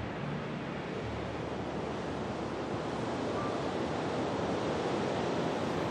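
Steady wash of wind and water, swelling slightly toward the end.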